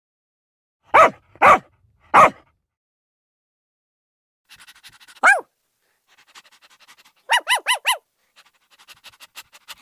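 Dogs barking in a series of separate sound-effect clips: three loud barks about a second in, a single bark falling in pitch a little after five seconds, then a quick run of four higher barks. Between the barks come quieter, rapid panting pulses.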